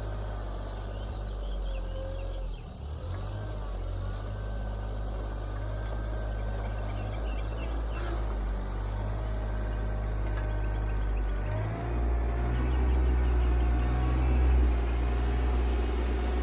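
Kioti RK24 compact tractor's diesel engine working under load while pushing mulch, its pitch rising and falling, and louder from about two-thirds of the way in.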